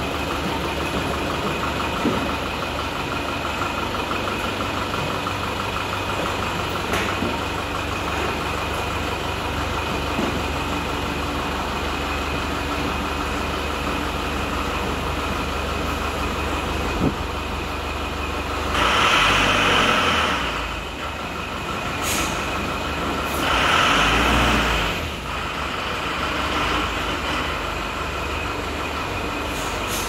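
Tata 407 mini bus's diesel engine running steadily. About two-thirds of the way through come two loud hisses of compressed air from its air system, a few seconds apart and each about a second and a half long.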